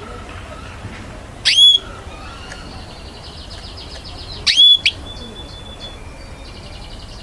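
Canaries singing: two loud whistled notes that sweep upward, about a second and a half and four and a half seconds in, with a quieter fast trill between them and again near the end.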